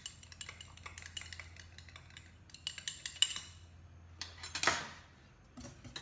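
A kitchen utensil clinking and scraping against a mixing bowl in quick irregular taps while dry bread-dough ingredients are stirred together, with a louder scrape about four and a half seconds in.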